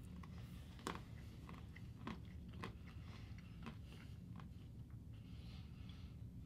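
Two people chewing bites of Almond Joy candy bars, coconut and almond in chocolate. The chewing is quiet, with a few sharp crunches of the almond: the loudest about a second in and again about two seconds in. A low steady room hum runs underneath.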